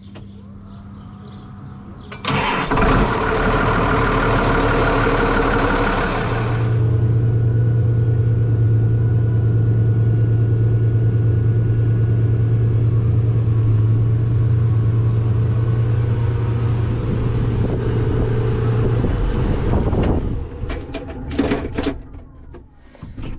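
Tractor engine cranking and catching about two seconds in, then running steadily. The sound drops away near the end.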